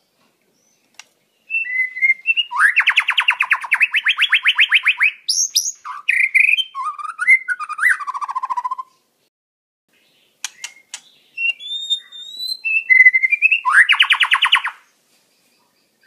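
White-rumped shama (murai batu) singing: varied whistled phrases broken by fast rattling trills, with a short pause near the middle followed by a few sharp clicks before the last trill.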